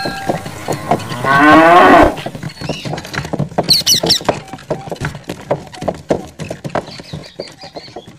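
A cow moos once, about one to two seconds in. Fast irregular clicking and ticking follows and carries on to the end, with a brief high chirp near four seconds.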